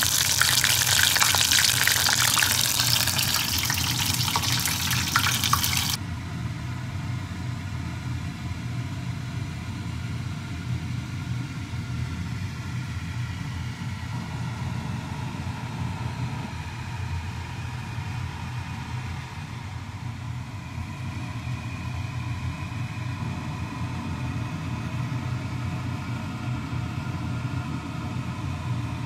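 Batter-coated sulphur shelf mushroom pieces deep-frying in hot sunflower oil: a loud, even sizzling crackle that cuts off suddenly about six seconds in. After that only a quieter steady low hum remains.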